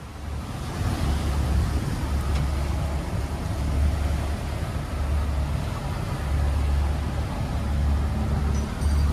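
Strong wind buffeting the microphone in a heavy, uneven low rumble, over the rush of water along the hull of a sailboat running fast through breaking seas.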